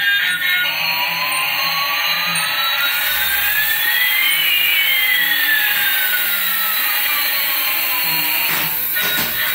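Toy coaxial RC helicopter's small electric rotor motors whirring in flight. Two motor whines slide in opposite directions, one rising in pitch while the other falls, crossing about halfway through.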